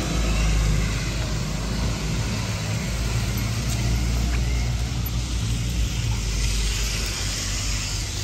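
Steady outdoor street noise: a low, fluttering rumble under an even hiss, like traffic on a wet road.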